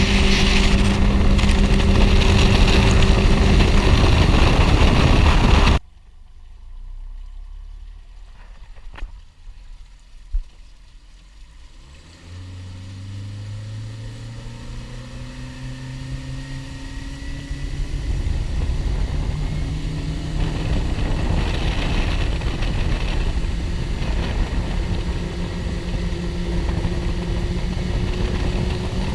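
Mercury Pro XS four-stroke outboard on a flats boat. Loud running with heavy rushing noise stops suddenly about six seconds in. After a quieter stretch with a couple of knocks, the motor throttles up around twelve seconds in, its pitch rising, and settles into a steady run.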